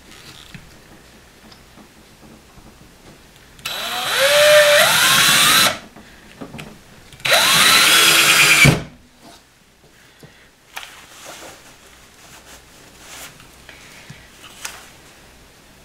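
Power drill driving screws: two runs of about two seconds and a second and a half, the motor pitch gliding as the screw goes in. Light handling clicks follow.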